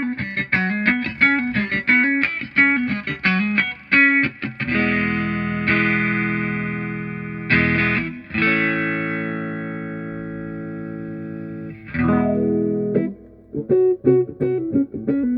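Electric guitar played through a Vox 846 hand-wired wah pedal: a quick picked single-note riff, then several chords struck and left ringing out, then the picked riff again near the end.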